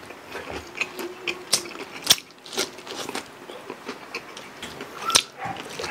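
Close-up mouth sounds of people eating crispy deep-fried pork leg (lechon pata) and rice: irregular biting, chewing and crunching of the crackling skin, with a sharp crunch about two seconds in and another about five seconds in.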